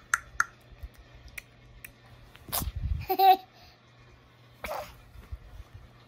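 Toddler making clicking sounds with her tongue and mouth: a few sharp clicks at the start and two more between one and two seconds in. Then a breathy puff, a short high vocal sound around three seconds, and another breathy sound near five seconds.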